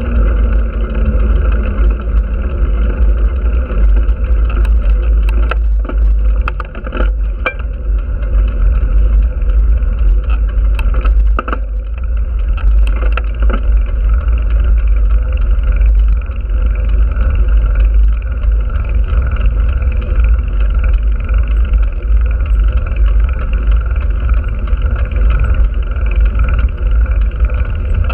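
Heavy wind buffeting on the microphone of a handlebar-mounted camera while riding a road bicycle, a steady loud rumble with a few scattered clicks. An oncoming car passes about a second in.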